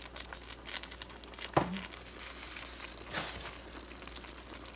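Light crinkling and crackling of a seasoning container as Creole seasoning is shaken into a pot of tomato and ground beef sauce, with one sharp click about a second and a half in and a brief swish near three seconds.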